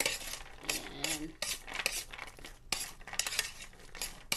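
A metal spoon stirring raw marang seeds around a metal baking pan: irregular scraping of seeds and spoon on the pan, with sharp clinks of the spoon against the pan's rim.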